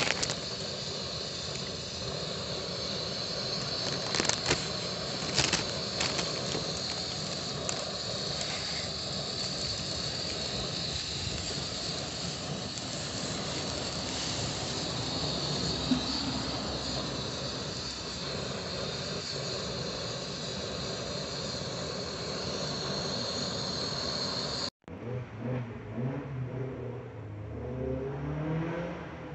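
Portable gas cartridge burner hissing steadily under a stainless camp pot of boiling water, with a couple of short knocks and rustles about four and five seconds in as the dry noodle block goes in. The hiss cuts off abruptly near the end and gives way to a quieter, uneven sound.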